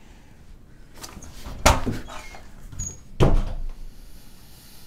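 An interior door thuds shut: a sharp bang, then a second heavier thump about a second and a half later.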